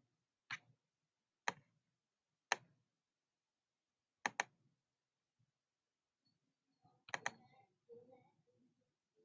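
Computer mouse clicking: three single clicks about a second apart, then two quick double clicks. Faint low sounds follow near the end.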